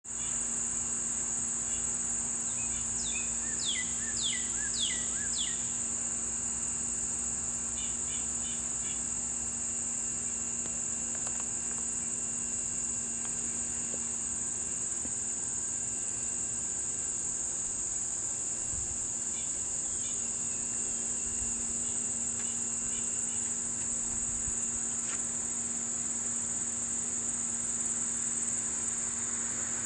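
A steady, high-pitched chorus of insects that drones without a break. A bird calls a handful of quick downward-sliding notes about three to five seconds in, and short chirps come around eight seconds and again around twenty seconds.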